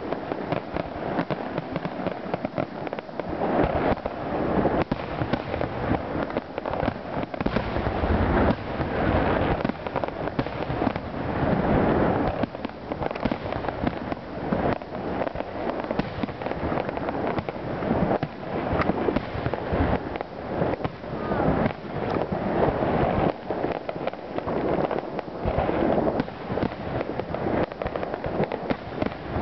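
Fireworks display: a dense, continuous barrage of aerial shell bursts, with bangs and crackling overlapping with no break.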